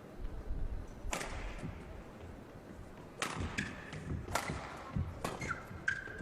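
Badminton rally: a series of sharp racket strikes on the shuttlecock, roughly one a second, with shoes squeaking on the court floor near the end.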